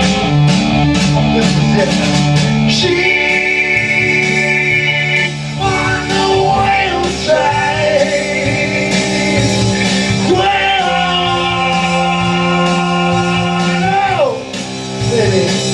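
Glam metal rock music with electric guitar and drums. There are long held lead notes, and one slides down in pitch near the end.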